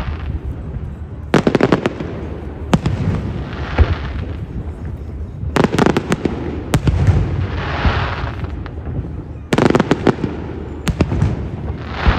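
Fireworks display: groups of sharp bangs about every four seconds, each followed by a longer rushing hiss, over a steady low rumble of booms.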